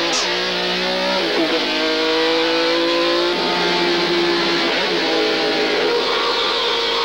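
Soundtrack music on distorted electric guitar: a couple of downward slides around the start, then long held chords that change about halfway through.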